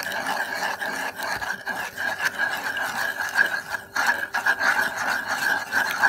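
Wooden spoon stirring and scraping a warm milk, butter and sugar mixture in a nonstick pan, with many short irregular scrapes over a steady hiss.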